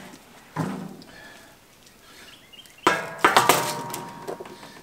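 Metal clanking and rattling from the steel-drum offset smoker's grill rack as the brisket is set on it: a knock about half a second in, then a louder clatter with ringing about three seconds in.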